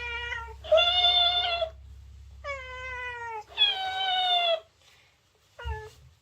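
A cat meowing: four drawn-out meows of about a second each, then a short one near the end.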